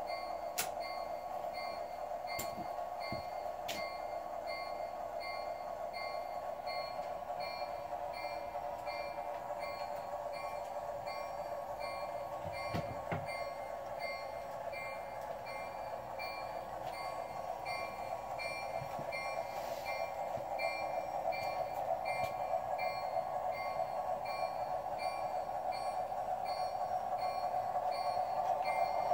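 American Flyer S-gauge model train, a Flyer Chief Baldwin switcher and its cars, running on the layout's track with a steady rumble that grows louder in the last third as the cars come closer. A few sharp clicks come in the first few seconds, and a faint high beep repeats evenly throughout.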